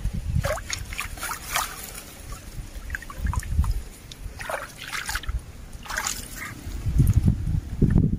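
Water splashing and dripping as a hand scoop net is worked through shallow muddy stream water and lifted out, in a few short bursts.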